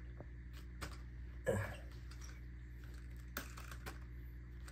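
A few faint, scattered light clicks and taps as a small EPP foam RC plane is nudged over onto its nose and rocks back onto its wire landing gear on carpet, over a low steady room hum.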